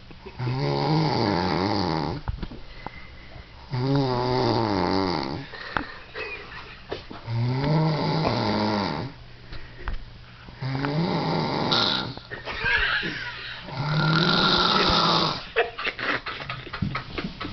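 A man snoring in a drunken sleep: five long snores, about one every three and a half seconds, with quieter breaths between them.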